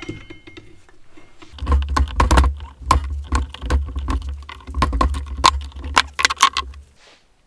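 Steel pry bar levering the side output flange out of a Supra limited-slip differential housing: a fast run of sharp metal clanks and clicks over a low rumble from the heavy housing shifting on the bench. It stops shortly before the end.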